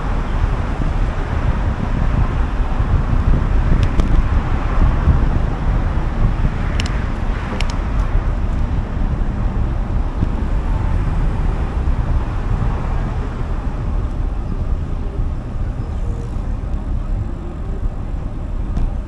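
Road traffic heard from a moving bicycle: a steady rush of passing cars over a heavy low rumble, swelling about four to five seconds in. A few faint clicks come between about four and eight seconds in.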